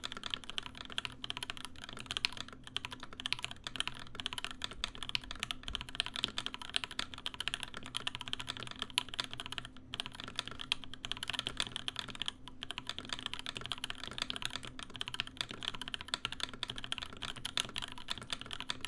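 Continuous fast typing on a top-mount DeltaBlade mechanical keyboard fitted with lubed and filmed JWK Tourmaline v2.5 switches and GMK keycaps: a dense stream of keystroke clacks, with a short pause about halfway through.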